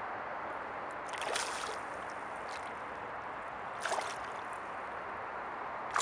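A small hooked pike splashing and thrashing at the lake surface beside a boat. The splashes come about a second in and again near four seconds, over a steady hiss.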